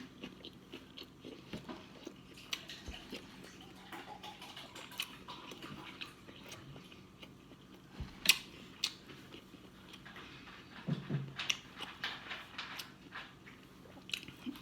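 A person eating seafood boil close to the microphone: soft chewing and biting with scattered small mouth clicks, and a couple of sharper clicks about eight seconds in.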